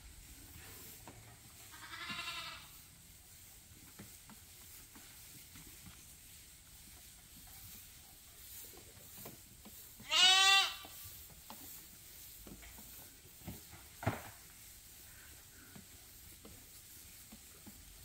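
Sheep bleating: a faint quavering bleat about two seconds in, then a loud, high bleat about ten seconds in. A short knock follows a few seconds later.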